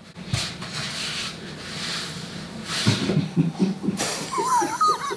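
Fabric rustling and rubbing as an anti-snoring sleep T-shirt is pulled on. About three seconds in come a quick run of low pulses, about six a second, then a short wavering higher tone with hiss.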